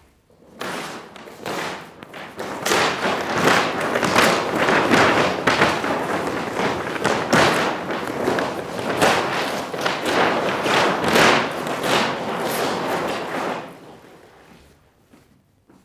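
Large sheets of drawing paper being ripped and crumpled by hand: a continuous loud crackling and tearing with many sharp snaps, stopping abruptly about two seconds before the end.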